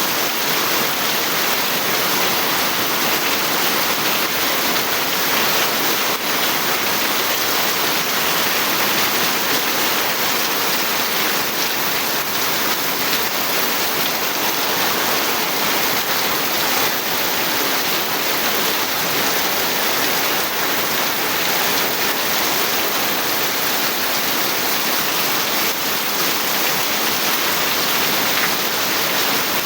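Steady heavy rain falling, a dense even hiss.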